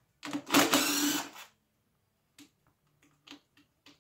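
A quick, loud mechanical rattle lasting about a second, then a few light clicks and taps, from parts of a hybrid car battery pack being worked on by hand.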